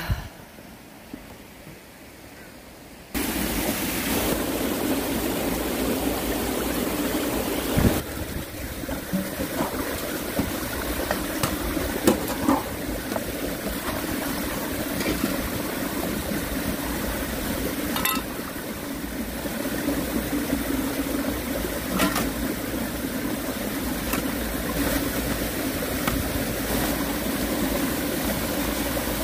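A small rocky mountain stream running steadily, with water splashing as roots are rinsed in a plastic basin, and a few short sharp knocks. The stream sound begins suddenly about three seconds in, after a quieter start.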